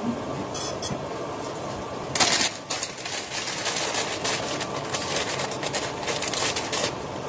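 Plastic instant-noodle packaging and sauce sachets crinkling and rustling as they are handled and opened over a bowl. There is one loud crinkle about two seconds in, then a run of small scratchy clicks and rustles, over a steady background hiss.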